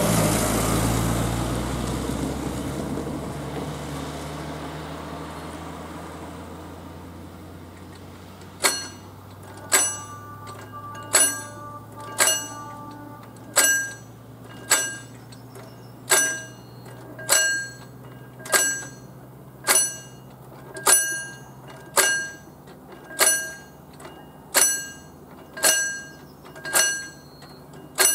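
A car passes close by, its noise fading away over the first few seconds. About nine seconds in, the mechanical barriers' warning bell (předzváněč) starts ringing: single ringing strikes, about one every 1.2 seconds, signalling that the barriers are about to be lowered for a train.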